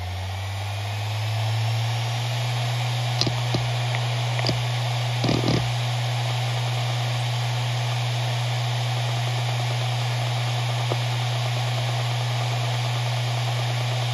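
Maxtor MaXLine Pro 500 hard drive finishing its spin-up: the 7200 RPM spindle hum rises in pitch and settles to a steady tone about two seconds in, over a steady hiss. A few short head clicks and brief seek chatter follow between about three and six seconds in, with one more click later.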